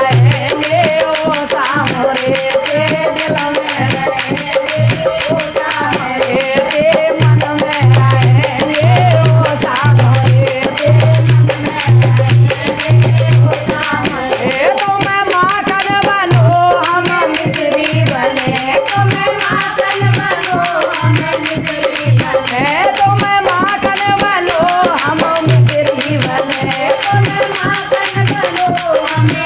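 Group of women singing a Hindi Krishna bhajan, accompanied by a dholak whose deep bass strokes come in rhythmic runs, along with hand claps and the jingle of small hand cymbals.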